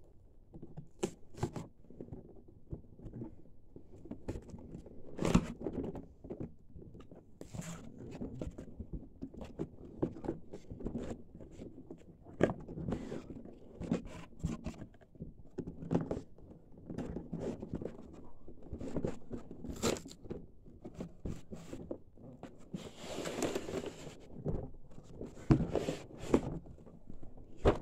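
A cardboard fireworks box (a reloadable mortar kit) being opened by hand and its contents handled: scattered knocks, scrapes and crinkles, with a longer stretch of tearing or rustling near the end.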